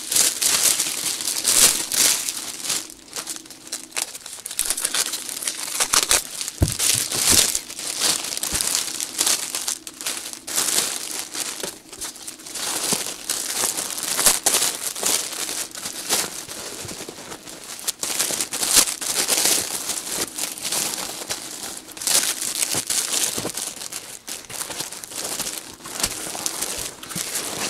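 Thin clear plastic oven roasting bag crinkling and rustling in the hands as it is spread and wrapped over a motorcycle seat's foam, in irregular bursts.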